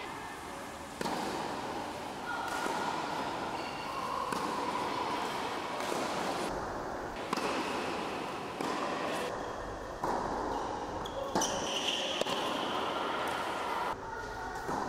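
Tennis ball struck by a racket on an indoor hard court: a few sharp, separate hits that echo in a large hall.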